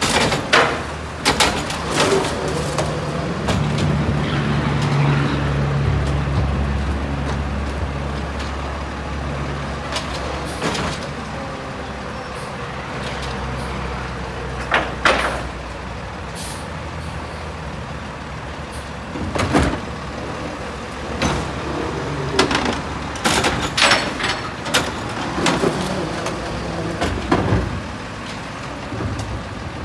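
Diesel engine of a CCC automated side-loader garbage truck revving up and holding to drive the hydraulic arm and packer as it empties a recycling cart, with knocks and clatter of the plastic cart and arm. In the second half come a series of sharp hisses and bangs, fitting air-brake releases as the truck moves on.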